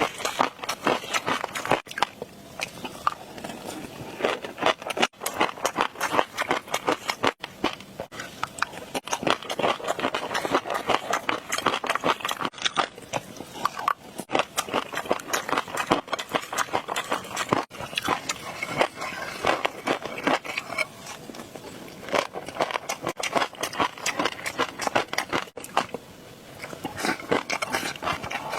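Close-miked ASMR eating sounds: continuous rapid crackling, popping and chewing.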